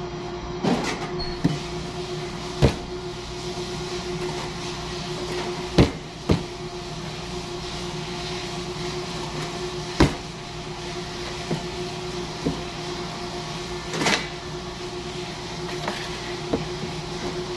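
Bread dough being divided and weighed: sharp knocks of a metal bench scraper on a stainless-steel worktable, about ten at irregular intervals, over a steady hum of kitchen equipment.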